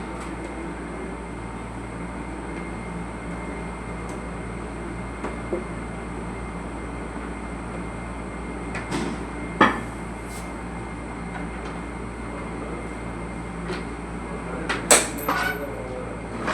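A steady low hum over a background of noise, broken by a few sharp knocks or clicks, the loudest about ten seconds in and again near the end.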